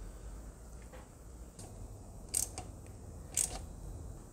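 Socket ratchet tightening a sealant-coated 12 mm plug bolt into a Honda K24 engine block. There are two short bursts of ratchet clicking about a second apart.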